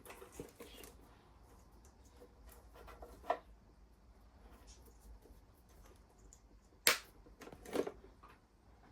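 Quiet handling noises of hands working on scooter wiring, with a few sharp clicks, the loudest about seven seconds in and a short cluster of knocks just after.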